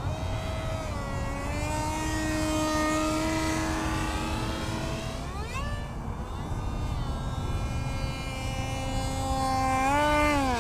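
64 mm electric ducted-fan unit of an RC F-117 model jet whining in flight. The pitch rises quickly about halfway through, holds, then drops near the end as the jet touches down.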